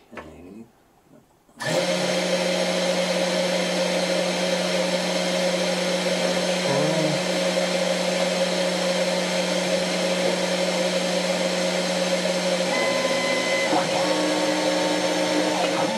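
CNC router spindle motor switched on, starting suddenly and running at a steady pitch with a strong hum and whine. About 13 seconds in, further whining tones join as the stepper motors begin driving the axes.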